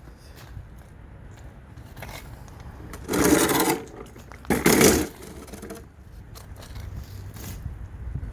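Two short, loud scraping noises, the first about three seconds in and a shorter second one a moment later, over a low background rumble.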